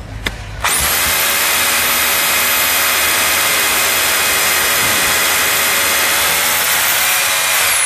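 Corded rotary hammer drilling into a concrete block with a half-inch SDS Plus bit. It starts suddenly under a second in and runs steadily at full speed with a high whine, and its pitch begins to fall just at the end as the trigger is let go.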